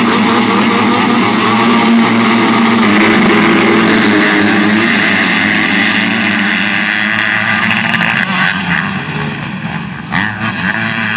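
A pack of Super Mini youth motocross bikes launching off the start gate together, many engines running at high revs at once. The engine noise fades over the last few seconds as the pack pulls away.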